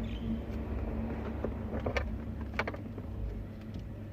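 Electrical tape being unrolled and wrapped around a car-stereo wiring loom: a few short, sharp crackles and clicks over a steady low hum.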